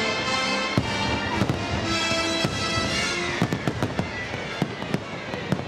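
Fireworks going off, a string of sharp cracks and pops that comes thicker and faster from about three seconds in, over music with long held notes.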